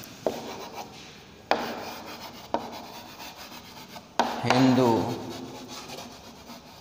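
Chalk writing on a blackboard: scratchy strokes with sharp taps each time the chalk comes down on the board.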